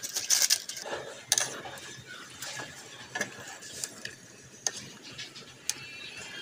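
Greens being handled in an aluminium cooking pot: irregular knocks and clicks of wooden chopsticks against the metal pot and rustling of the stalks as they are stirred, the loudest knocks in the first second and a half.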